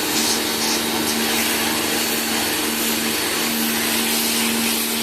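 Electric high-pressure washer running steadily: its motor-pump gives a constant hum, under the hiss of the water jet spraying.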